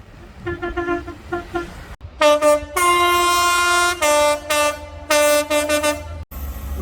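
Train horn sounding a series of toots. A few fainter short ones come first. Then, after an abrupt cut about two seconds in, come loud, close blasts: two short ones, a long blast of about a second, and more short and long notes switching between a higher and a lower tone.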